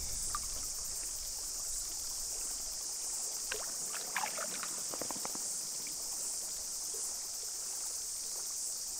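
Steady high-pitched drone of cicadas, with a few small water splashes and trickles about halfway through as hands move in the shallow river, releasing a trout.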